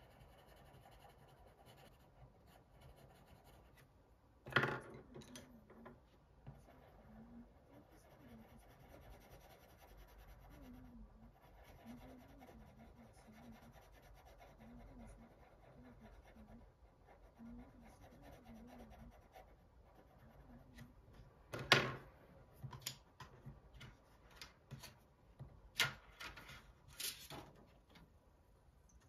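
Pencil drawing on paper: faint, continuous scratching strokes, broken by a sharp knock a few seconds in, a louder one about two-thirds of the way through, and a run of smaller taps after it.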